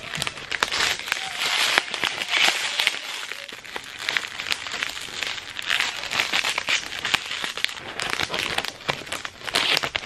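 Clear plastic packing bag crinkling and crackling in quick irregular bursts as it is handled, folded and pressed closed around a soft toy.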